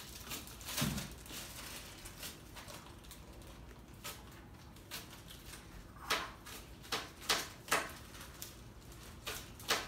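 Kitchen knife cutting through green onions onto a plastic cutting board: irregular sharp taps that come more often in the second half, with a dull thump about a second in.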